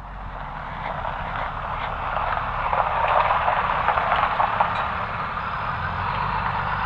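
A vehicle driving past on a paved road, its tyre and engine noise swelling to its loudest about three seconds in.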